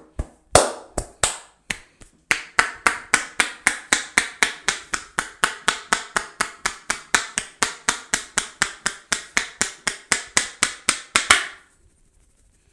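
Hand slaps of a barber's percussive massage: a few slower, uneven strikes, then a fast, even run of about four sharp slaps a second that stops abruptly near the end.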